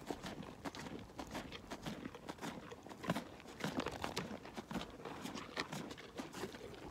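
Alpaca chewing close to the microphone: a quick, irregular run of crunches and crackles.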